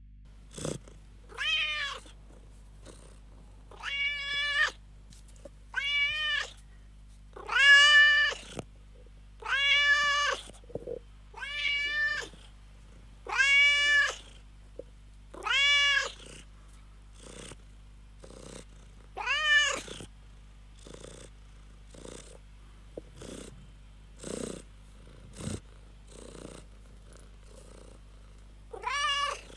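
Domestic cat meowing over and over, each meow under a second long and rising then falling in pitch, about every two seconds at first. Later the meows thin out into a few softer, shorter sounds, with one more full meow near the end.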